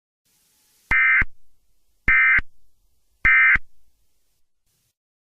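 Three short bursts of Emergency Alert System digital data tones, about a second apart: the end-of-message signal that closes an EAS alert.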